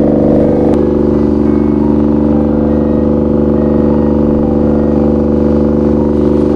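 Suzuki DE51V kei van's three-cylinder engine idling steadily through a homemade muffler made from a motorcycle silencer.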